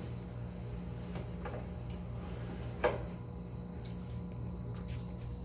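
Steady low hum with a fast, even pulse, under a few soft clicks and rustles of a cloth towel being handled and hung on a metal towel rail, the sharpest click about three seconds in.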